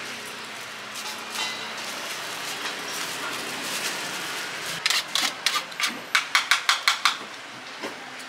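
Thin plastic carry bag crinkling as it is handled around a juice bottle: a quick run of sharp crackles from about five to seven seconds in, over a steady background hum.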